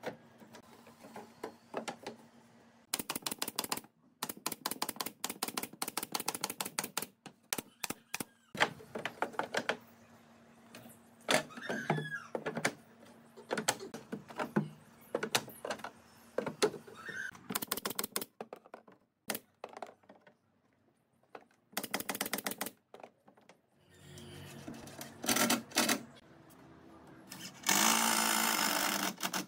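Pneumatic nail gun driving nails into pine pallet boards: several quick runs of sharp, evenly spaced clacks with single knocks between them, then a steady whir of a power tool near the end.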